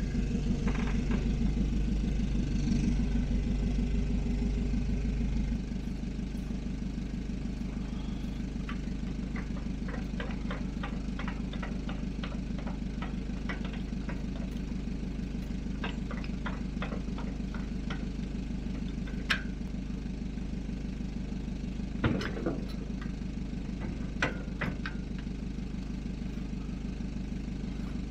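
A Mercedes-Benz Sprinter van's engine running as it backs up, then idling steadily from about five seconds in. Over the idle come scattered metallic clicks and a few louder clanks as a trailer's hitch and safety chains are coupled to the van.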